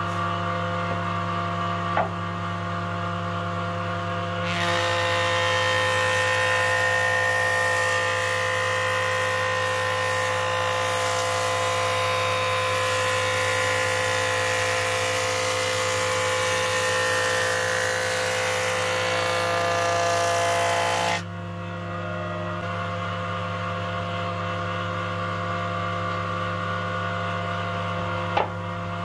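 Electric wood-planing machine running with a steady hum. A board is fed across the cutter from about four seconds in, giving a loud, dense cutting noise for about 17 seconds that stops abruptly. A sharp knock about two seconds in and another near the end as the board is handled on the table.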